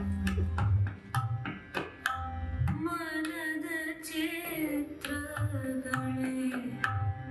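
Indian classical music for the dance: sharp hand-drum strokes with deep booming drum tones, one of them bending upward in pitch. From about three seconds in, a voice sings over held tones with wavering, ornamented pitch.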